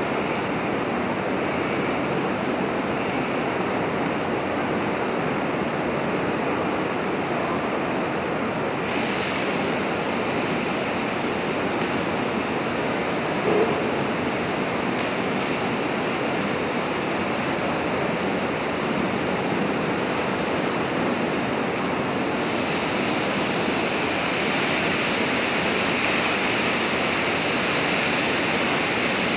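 Steady rushing roar of a burning office-workstation fire with a heptane spray burner running. A short pop comes about thirteen seconds in, and the hiss grows brighter twice along the way.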